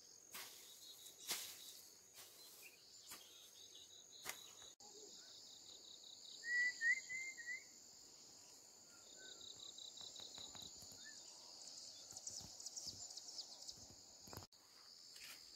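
Crickets and other insects trilling steadily in the background, with a bird's short chirping call standing out for about a second near the middle. A few short sharp scrapes or knocks come in the first few seconds.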